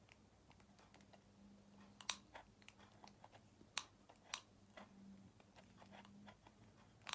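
Faint, irregular small plastic clicks from a side-action correction tape roller being pushed over a card, with a few sharper clicks as the mechanism catches instead of rolling freely. A faint steady low hum sits underneath.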